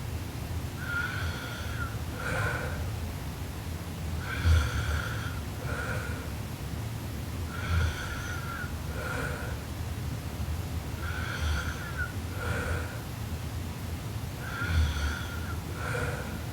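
A young woman snoring in her sleep: a rattling snore on each breath, about every three and a half seconds, each followed about a second later by a shorter second sound.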